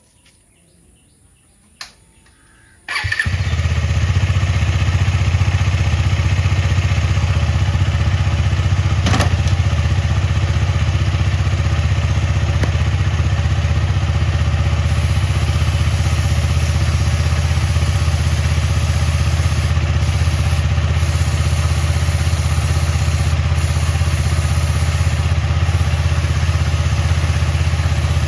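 KTM Duke 250's single-cylinder engine starting about three seconds in after a short click, then running steadily.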